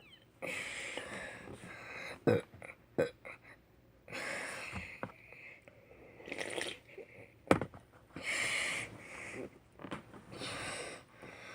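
A boy breathing hard in several loud, hissing gasps between burp attempts, with a few sharp clicks in between.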